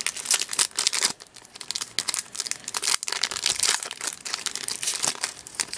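Silver foil wrapper of an SPX hockey card pack being torn open and crinkled by hand: a dense, irregular run of sharp crackles.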